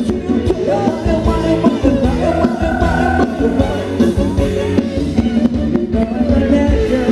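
A live band playing upbeat Thai ramwong dance music, with a singer over a steady beat.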